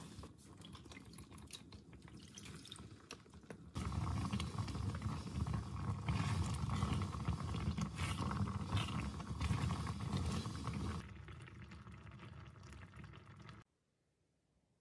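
Thick tteokbokki sauce pouring and dripping from a plastic container into a pan. Then comes a louder, steady bubbling as the sauce simmers and is stirred with a spatula. The sound cuts off near the end.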